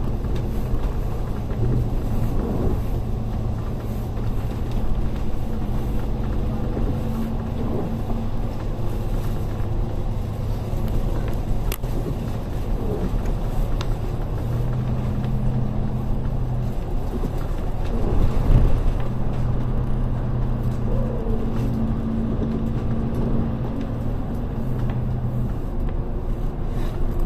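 Public bus driving, heard from inside the cabin: a steady engine drone and road rumble, with the engine tone shifting up and down several times.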